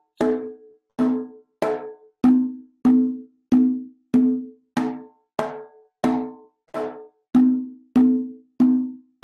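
Conga drum struck by hand at a steady, even pulse of about a stroke and a half per second, in an exercise of open tones against slaps in groups of four: ringing open tones alternate with sharper, higher-sounding fingertip slaps.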